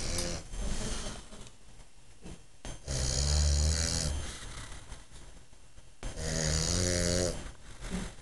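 A man snoring in his sleep: three snores about three seconds apart, each lasting about a second, a low buzzing rasp with a hissing edge. The second and third snores are the loudest.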